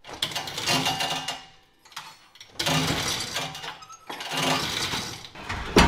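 Sectional steel garage door being raised by its hand chain: three surges of rattling and rolling as the chain is hauled and the door runs up its tracks, then a sharp knock near the end.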